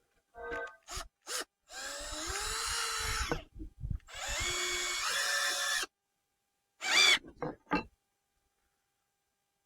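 Cordless drill-driver driving screws into wooden crossbeams in two runs of about a second and a half each, the motor pitch rising and shifting as the screws bite. A few short, sharp knocks and clicks follow near the end.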